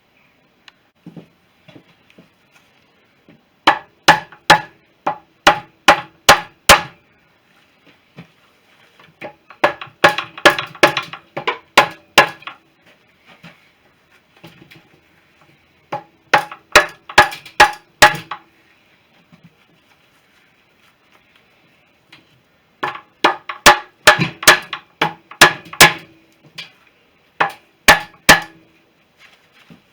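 Hammer blows on metal in several bursts of quick strikes, each strike ringing, as the BSA B31 engine's crankcase halves are knocked apart.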